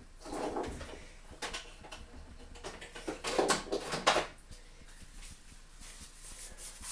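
Several separate knocks and clatters of kitchen things being picked up and handled, spread over the first four seconds.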